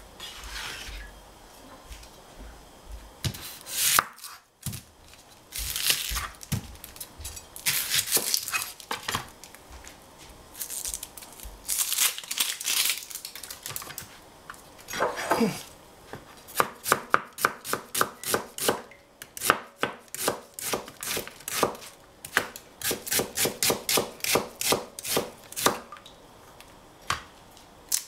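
Chef's knife cutting an onion on a plastic cutting board: scattered cuts and scrapes at first, then from about halfway a run of quick, even slicing strokes, about four a second, knocking on the board.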